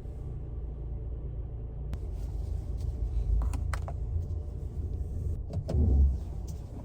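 Car cabin noise: a steady low engine and road rumble, with a few light clicks and a louder low bump near the end.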